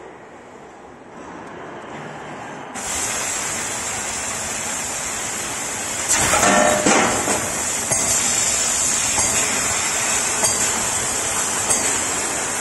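Fiber laser tube cutter working on thin stainless steel round tube: a steady high hiss of cutting gas and laser cutting comes on suddenly about three seconds in. It grows louder for about a second midway, with a few light clicks over it later.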